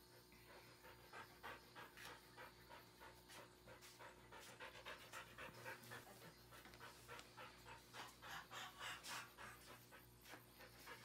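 Samoyed dog panting quickly and evenly, over a steady low hum from large machinery running.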